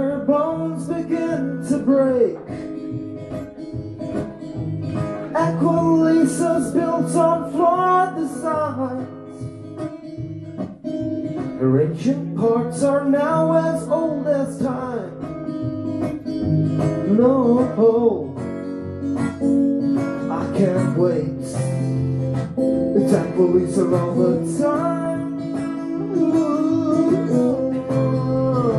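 Live solo acoustic guitar, strummed, accompanying a man singing in long melodic phrases.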